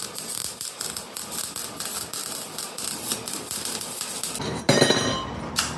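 Welder crackling as it lays a bead on steel exhaust pipe, a dense run of rapid irregular clicks. Near the end the crackle stops and a short, louder burst of noise with a ringing edge follows.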